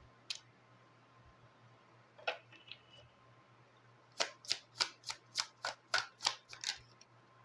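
Tarot cards being shuffled by hand: a couple of lone card clicks, then from about four seconds in a quick, even run of sharp card snaps, roughly three a second.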